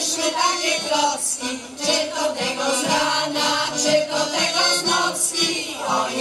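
Women's folk choir singing a Polish folk song in unison, with button accordion accompaniment, amplified through stage speakers.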